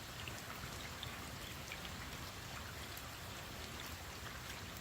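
Light, steady rain falling, an even hiss with scattered faint ticks of single drops landing.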